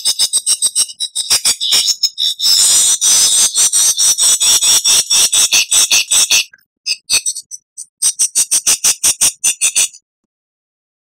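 Lyrebird calling in rapid trains of sharp, high-pitched clicking notes, a pause and a second fast burst, then it cuts off suddenly about a second before the end.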